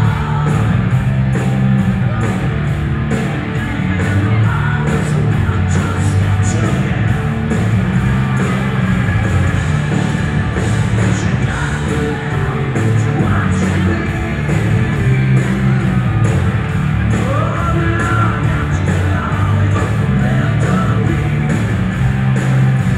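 Live rock band playing loud in a club: electric guitars, bass, keyboards and drums on a steady beat with regular cymbal hits, and a lead singer, heard from within the audience with a heavy low end.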